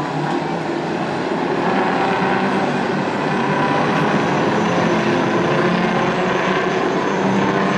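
Several scaled-down semi-truck race cars running together on a dirt oval, their engines making a steady, continuous drone of mixed engine notes.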